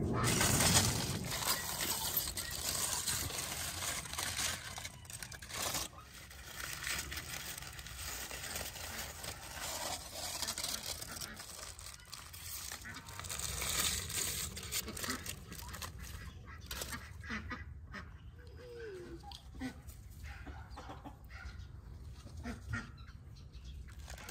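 Aluminium foil and baking paper crinkling and rustling as they are pulled open and peeled back from a tandoor-baked salmon, with bursts of crackling through most of the first two thirds and sparser rustles near the end. Poultry can be heard calling in the background.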